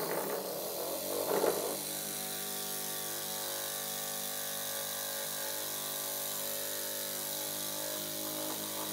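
Small brass single-cylinder oscillating steam engine running fast on compressed air, its exhaust speed-controlled by a tap: a steady hum made of several even tones over a hiss of air. It is louder and rougher for the first couple of seconds, then settles to an even pitch.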